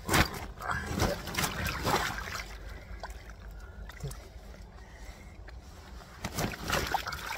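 Large common carp thrashing on a wet unhooking mat: bursts of wet slaps and splashes from its body and tail, just after the start, around one to two seconds in, and again near the end.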